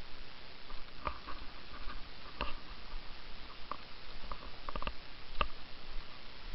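Footsteps on a stony path: irregular scuffs and taps, several in a few seconds, over a steady low hiss.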